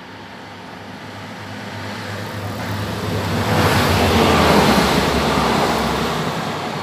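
A TER diesel railcar passing right beneath and pulling away down the line. Its engine hum and the wheels on the rails build up, peak about four seconds in, then fade.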